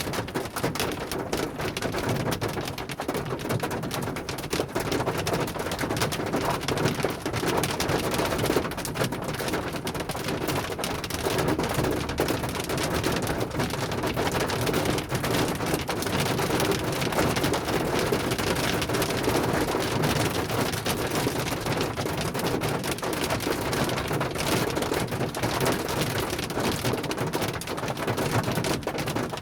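Hailstorm: hail and rain pelting down in a dense, steady patter of countless small hits.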